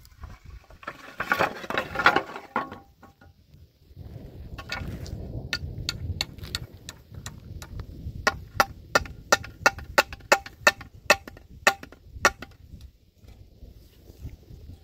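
Loose wooden boards clattering as they are pulled from a pile, then a hammer striking a wooden board about a dozen times, roughly three blows a second, a little over halfway through.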